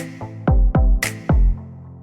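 Background electronic music with a steady beat: deep kick drums that drop in pitch and a sharp snare hit about once a second.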